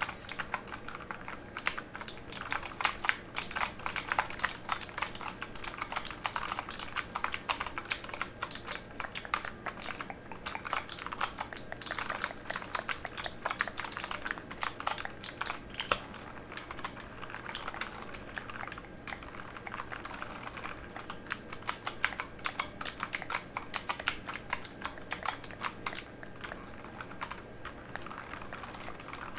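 Typing on a mechanical keyboard: a steady, dense run of key clicks that thins out in the last few seconds.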